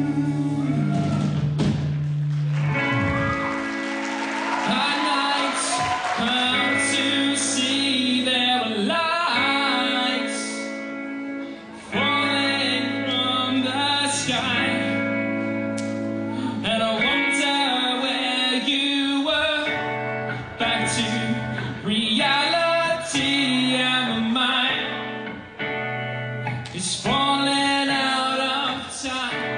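Live band music: a man singing over guitar, with sustained chords underneath.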